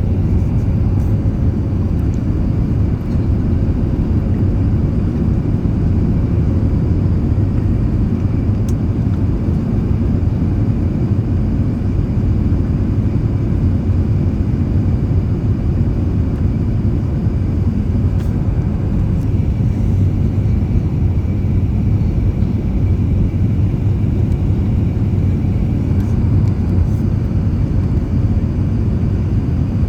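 Steady low rumble of an Airbus A380 in flight, engine and airflow noise heard from inside the cabin, unchanging throughout.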